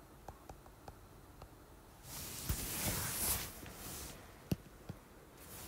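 Faint, scattered taps of a stylus on a tablet screen during handwriting. About two seconds in, a soft rushing noise swells and fades over roughly two seconds; it is the loudest thing here.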